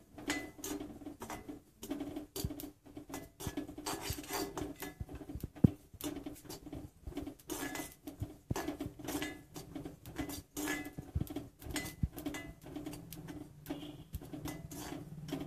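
A metal spoon stirring and scraping cumin seeds as they dry-roast in an empty kadai without oil, making light, irregular scratchy strokes with clicks of spoon on pan. One sharper clink comes a little past a third of the way in.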